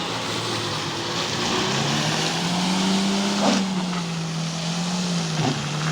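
Off-road 4x4's engine running under load, revving up about a second and a half in and then slowly easing off, over a steady hiss, with a short knock midway.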